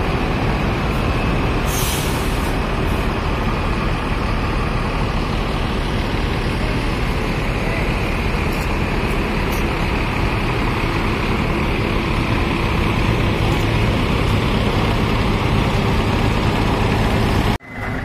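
Diesel bus engine running steadily close by, with a short hiss of compressed air about two seconds in, typical of air brakes. The sound cuts off abruptly just before the end.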